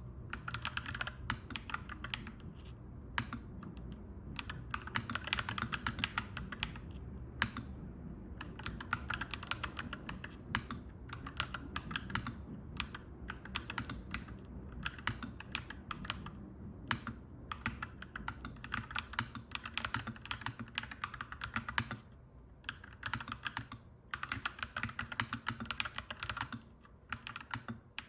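Mechanical keyboard typing: runs of quick, clacky keystrokes broken by short pauses, over a steady low background rumble.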